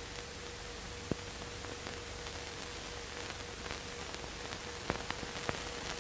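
Steady hiss with a faint held hum and a few sharp crackle clicks, about a second in and again near the end: the surface noise of an old 1930s film soundtrack, with nothing else audible above it.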